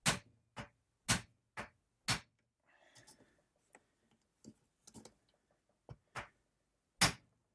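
Hammer striking a hand impact driver seated in a seized screw in a Yamaha PW50 engine case, trying to shock it loose: five sharp blows about half a second apart, then a brief scrape and a few lighter taps, and one last hard blow near the end.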